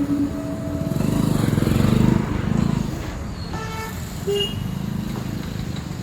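Road traffic noise, a steady low rumble of passing vehicles that swells for a second or two, with a brief horn toot about three and a half seconds in and a short beep just after.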